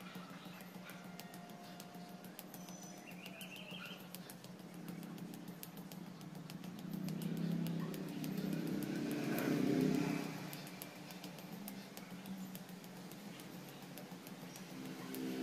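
Fists striking a hanging punching bag in a fast, steady string of slaps, several a second. A motor vehicle passing by swells and fades, loudest about seven to ten seconds in.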